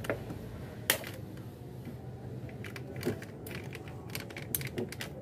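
Scattered light metallic clicks and taps, with a sharper knock about a second in: an aluminium valve cover being handled and seated onto a Toyota 2AZ-FE cylinder head by gloved hands.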